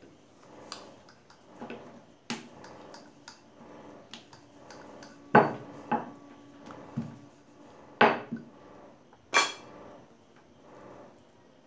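Kitchen utensils clinking and knocking against dishes, with three sharp, loud clinks about five, eight and nine seconds in, among lighter taps of a wooden rolling pin working dough on a marble counter.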